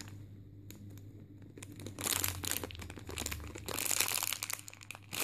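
Clear plastic packaging bag crinkling as a bagged foam squishy is handled and squeezed, with two louder bursts of rustling about two and four seconds in.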